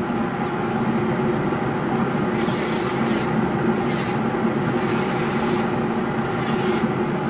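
Electric dental lab handpiece spinning a thin separating disc, starting up at once and then running steadily with a whining hum. Several short gritty grinding bursts come from about two seconds in, as the disc cuts through the stone dental model to section it.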